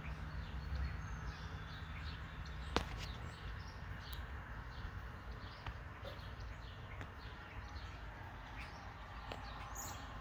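Outdoor backyard ambience of birds chirping: many short, high chirps scattered throughout over a low steady rumble, with a single sharp click about three seconds in.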